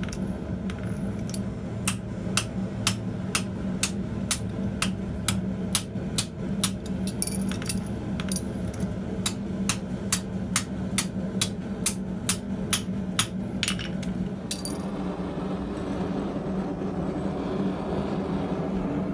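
Hammer blows on a small copper disc lying on a steel anvil, about two sharp strikes a second, dimpling the copper to texture it. The strikes stop about fifteen seconds in, leaving a steady low hum.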